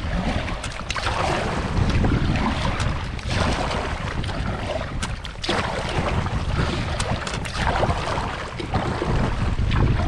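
Double-bladed kayak paddle strokes pulling through the sea, a splash swelling about every second as the blades dip on alternate sides, with wind buffeting the microphone.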